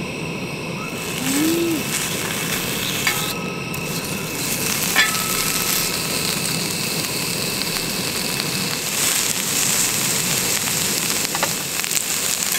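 Slices of beef rib meat sizzling steadily on a hot round griddle pan, with two light metallic clinks about three and five seconds in.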